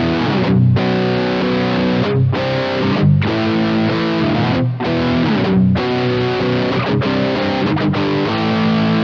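Johnson JH-100 hollow-body electric guitar on its middle pickup through a high-gain distorted amp, playing held chords that change every second or so, with short muted breaks between some of them.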